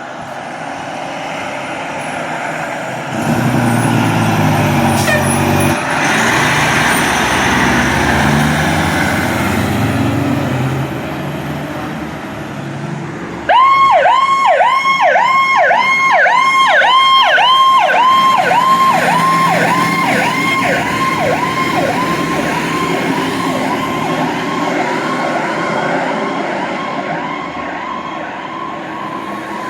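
Fire apparatus responding: a heavy truck's engine runs loudly by. About halfway through, an electronic siren starts abruptly in a fast yelp, roughly three sweeps a second, and slowly fades as the unit moves away.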